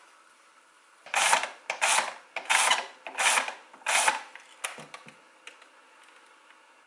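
A small hand-worked mechanism ratcheting in five short rasping strokes, each about half a second long, then a few light clicks.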